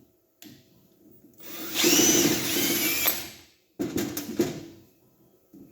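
Milwaukee cordless drill run briefly under the trigger: the motor whine rises and then falls over about two seconds. A shorter run with some clicking follows about four seconds in.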